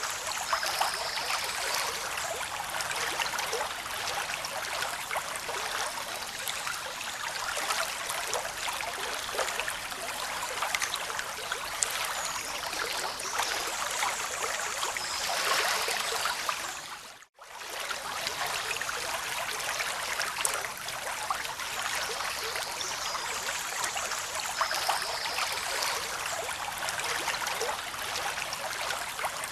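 Running water, a steady rushing and trickling like a stream or small falls. The sound drops out for a moment about seventeen seconds in, then comes back.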